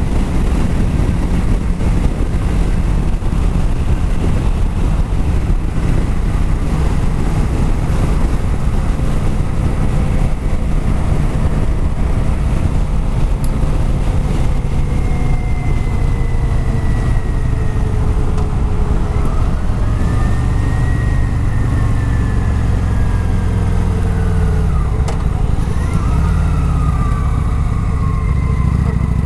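Kawasaki Vulcan 900 Classic's V-twin engine through its stock exhaust, running steadily at highway speed, heard from inside the rider's helmet.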